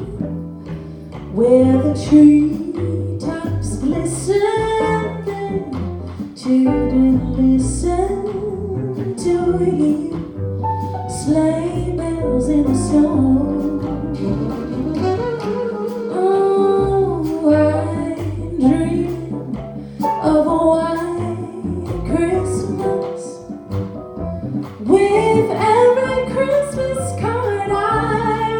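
A female jazz vocalist sings a slow holiday standard with a wavering vibrato, backed by a small jazz band with plucked double bass.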